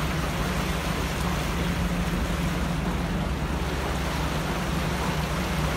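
Steady rush of floodwater churning across the road and around a vehicle wading through it, with a low engine hum underneath.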